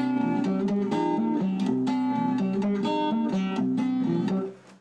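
A stereo sample played back through an Ensoniq ASR-10 sampler with its boost switched on: a quick melodic run of plucked-string notes that fades out just before the end.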